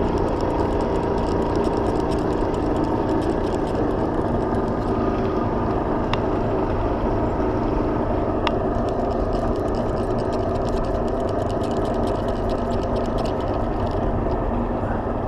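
Boat's outboard motor running steadily at low speed, a low hum under wind rumble on the microphone, with a couple of single sharp ticks near the middle.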